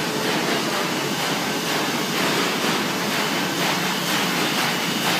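Printing machinery running in a factory hall: a loud, steady mechanical din with a faint regular beat.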